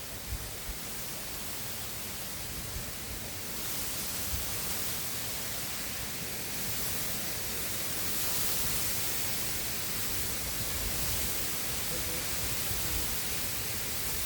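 Steady rushing noise of wind and river water, with gusts buffeting the microphone in low rumbles. The hiss swells louder about four seconds in and again a few seconds later.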